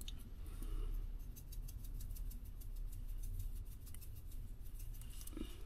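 Garlic salt shaken from a shaker into a rice cooker pot: faint, quick, even ticking over a low steady hum.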